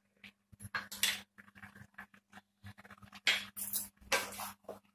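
Wooden spatula scraping and shifting raw chicken pieces in a pan. There are short scratchy rustles about a second in, and again several between three and four and a half seconds, over a faint steady low hum.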